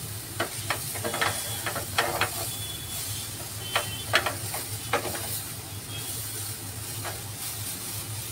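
Corn and chicken samosa filling sizzling in a pan over a gas flame, with a steady hiss and a low hum underneath. A wooden spatula scrapes and knocks against the pan a dozen or so times as the filling is stirred.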